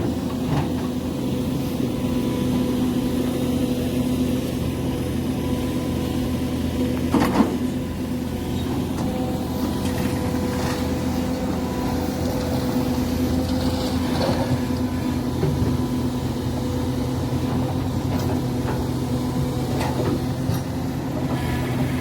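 Link-Belt excavator's diesel engine running at a steady speed, with a sharp knock about seven seconds in.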